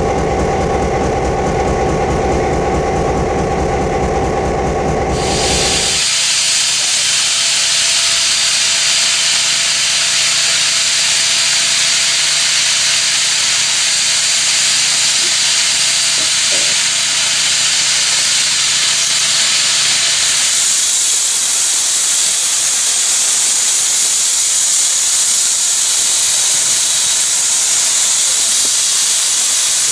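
A train running with a rhythmic low rumble for the first few seconds, then a steam locomotive hissing loudly as it vents steam, a steady hum under the hiss that stops about twenty seconds in, after which the hiss turns brighter.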